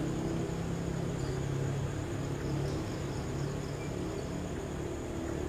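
Night-time outdoor ambience: insects chirping steadily at a high pitch over a continuous low drone.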